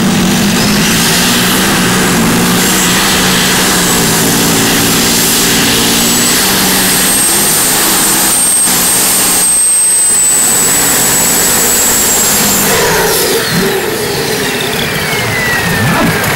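A modified pulling tractor's engine runs at full throttle hauling the sled down the track, with a high whine held over the engine. About 13 seconds in the power comes off and the whine glides steadily down in pitch as the engine winds down at the end of the pull.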